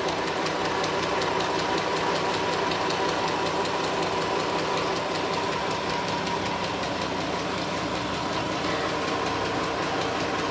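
Mini electric sewing machine running steadily as it stitches cloth: a constant motor whir with a fast, even clatter of the needle.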